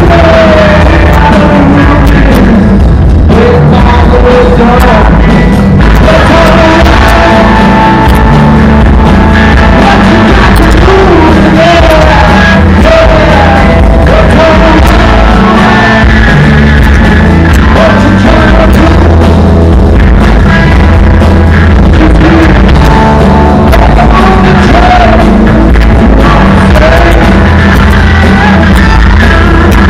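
Live rock band playing very loud: a male lead vocal over acoustic guitar, electric guitar, electric bass and drums.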